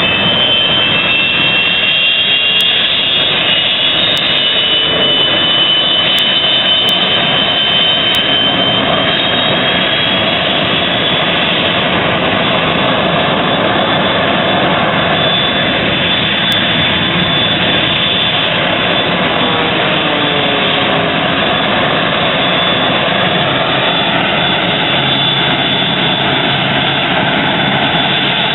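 North American F-86 Sabre's jet engine running at low ground power: a steady, loud rush with a high whine that rises slightly over the first several seconds and then holds steady.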